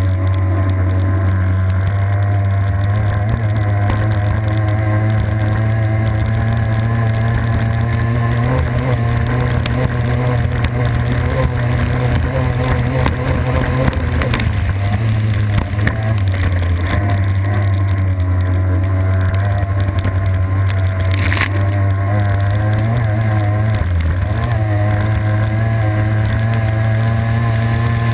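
Racing boat's engine running hard and steady at speed, heard from on board, with water rushing past the hull. One brief sharp crack cuts through about three-quarters of the way in.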